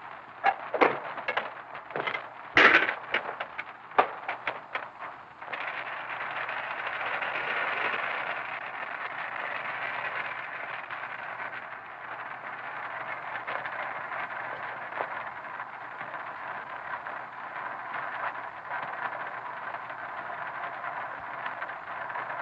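A few seconds of knocks and clatter, then a steady hiss that starts suddenly about five seconds in and runs on: gas escaping from an oven tap turned on but not yet lit.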